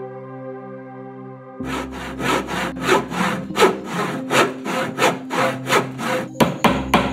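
Hand saw cutting wood in even back-and-forth strokes, about three a second, starting about a second and a half in over steady music.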